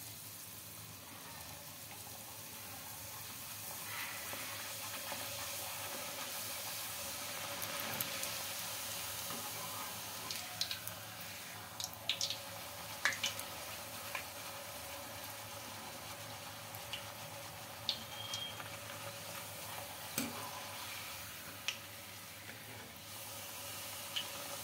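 Rice-flour coconut poori deep-frying in hot oil: a steady sizzle that swells over the first few seconds after the raw dough goes in, with scattered sharp clicks and pops in the second half.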